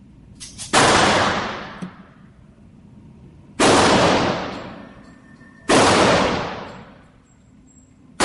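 Three gunshots about two to three seconds apart, each with a long fading echo.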